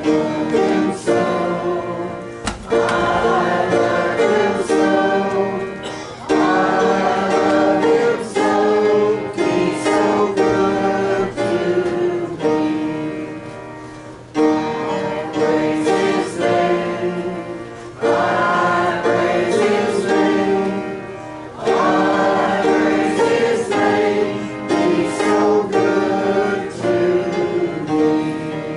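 Gospel song: a group of voices singing together, with a guitar accompanying.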